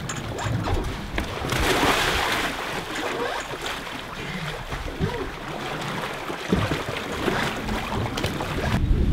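Sea water rushing and sloshing past the stern of a moving sailing catamaran, with wind buffeting the microphone. A louder spell of splashing about two seconds in, as a freediver slides off the stern step into the water.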